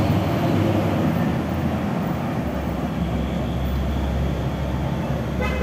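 Steady rush of wind buffeting the microphone, with road noise, while moving at speed on a road bike; the low rumble gets heavier a little before halfway. A short pitched tone sounds right at the end.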